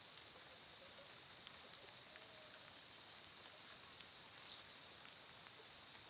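Faint outdoor ambience: a steady high-pitched insect drone with scattered faint ticks.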